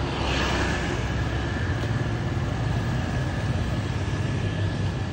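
Street traffic: motor scooters and cars on the road, a steady engine hum under road noise.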